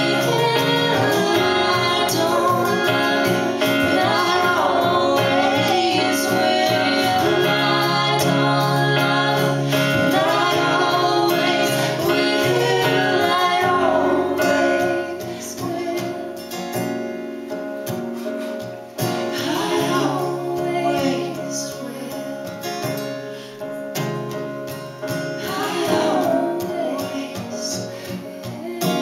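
A song performed live: male and female voices singing in harmony, accompanied by a strummed acoustic guitar and an electronic keyboard. The music drops in loudness about halfway through.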